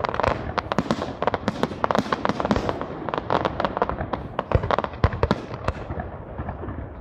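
Aerial fireworks bursting in quick succession: a dense, irregular string of bangs and crackles that thins a little near the end.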